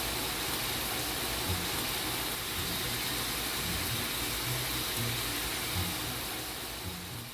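Marinated beef short ribs and garlic cloves sizzling in oil on a hot griddle pan, a steady frying hiss that fades out near the end.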